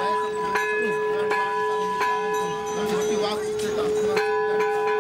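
A metal temple bell struck about six times at uneven intervals, each strike ringing on in one long steady tone that carries through to the next.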